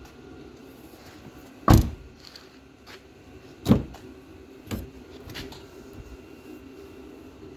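Nissan 350Z door handle and latch being worked after a handle replacement: a few sharp clunks, the loudest about two seconds in and others near four and five seconds, over a low steady hum.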